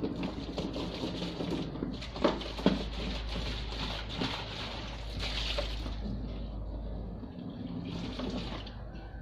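Water running and splashing steadily, with two sharp knocks a little over two seconds in; the flow eases after about six seconds.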